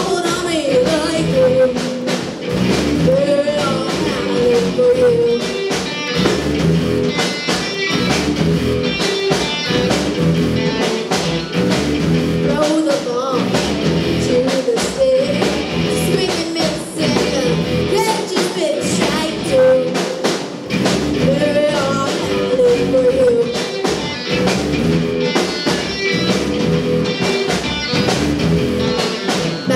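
Live rock band playing: a young woman sings lead over electric guitars and a drum kit keeping a steady beat.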